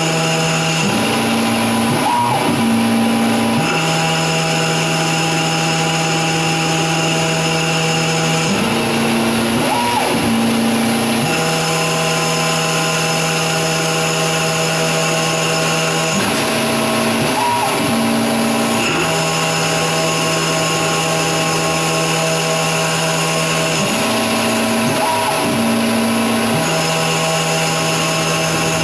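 Grizzly G0602 CNC lathe turning aluminium tube under flood coolant: a steady machine whine whose pitch shifts in a repeating cycle about every seven and a half seconds, each change with a brief rising and falling whine, as the cutting passes repeat.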